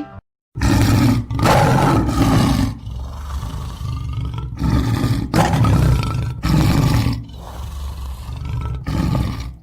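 Lion roaring: a run of several deep roars and grunts with short breaks between them, the last ones quieter.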